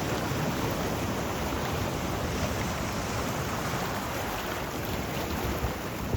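Sea waves washing on the shore: a steady, even rush of surf.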